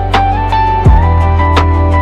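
Background music with a steady beat, a held melody line and plucked guitar.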